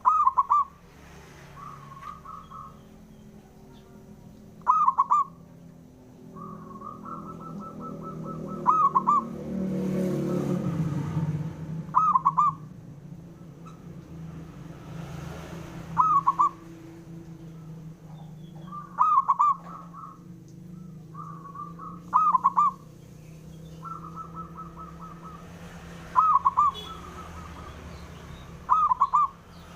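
Zebra dove (perkutut) cooing: nine loud, ringing staccato coo phrases about every three to four seconds, with softer quick runs of notes between them. A low rumble swells and fades around the middle.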